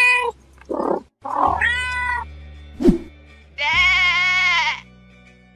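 Cat meowing, then a long wavering sheep bleat a little past halfway, over light background music.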